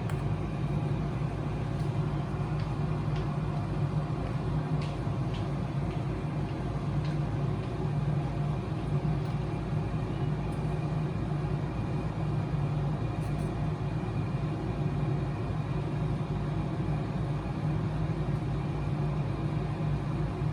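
Laboratory centrifuge spinning tubes of the patient's blood to separate the platelet-rich plasma, a steady low hum, with a few faint clicks in the first half.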